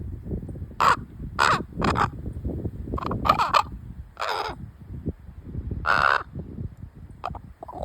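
A young raven calling in an excited chatter: a string of about eight short, rasping caws at uneven intervals, with one longer call about six seconds in, over a steady low rumble.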